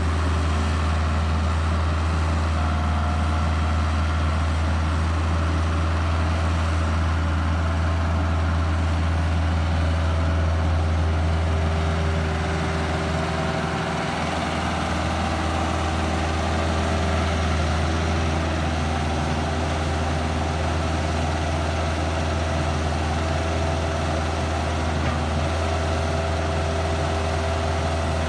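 Kubota mini excavator's diesel engine running steadily with a deep low drone, easing off briefly about halfway through as the machine moves across a ditch on its tracks.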